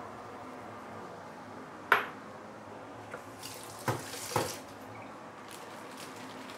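Prawn broth with Chinese cabbage simmering in a wok, a steady bubbling hiss. About two seconds in there is a single sharp clink against the pan, and around four seconds a short splashy patch with two sharper hits as prawns go into the broth.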